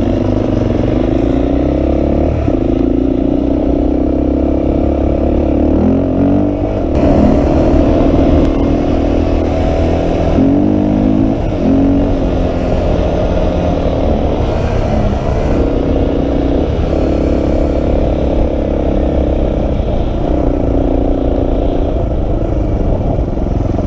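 Honda 350X ATV's single-cylinder four-stroke engine running under throttle, its pitch rising and falling several times as the throttle is opened and eased off.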